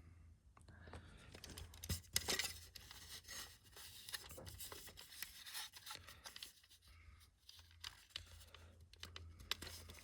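Plastic smoke alarm casing and parts handled by hand: rubbing and scraping with small clicks, loudest about two seconds in.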